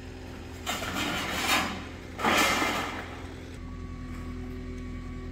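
Corrugated sheet-metal roofing panels being lifted and slid over one another, two loud scraping swishes about one and two seconds in. A steady low engine-like hum runs underneath.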